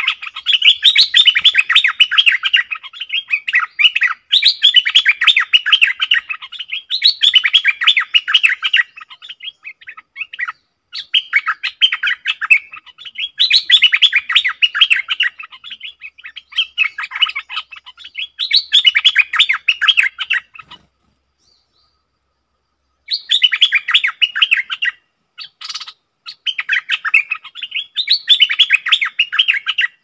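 A caged decoy stripe-throated bulbul sings over and over to lure a wild bulbul to the trap. Each phrase of many quick notes lasts about two seconds, with a pause of about two seconds a little past the middle.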